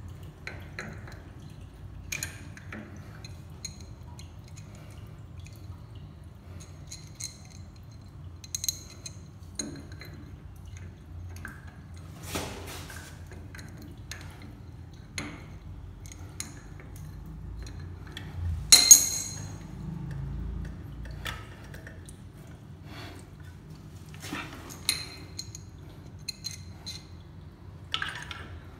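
Scattered metallic clinks and scrapes of a hand tool working on a chrome angle stop valve and its supply hose under a washbasin, with one loud clank about two-thirds of the way through.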